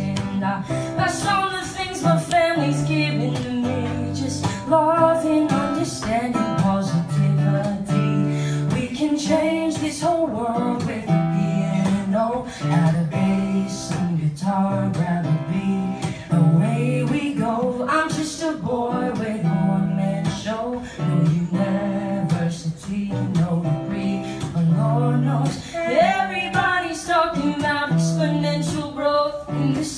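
A man singing a song with a strummed acoustic guitar accompanying him.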